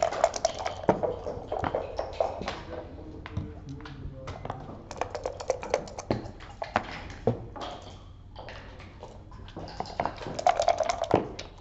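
Irregular clicks and taps of backgammon equipment on the table (checkers, dice and game clock), with a denser rattle of clicks near the end, over a steady murmur of voices in the room.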